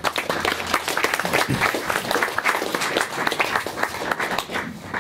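Audience applauding, many hands clapping densely, thinning out near the end.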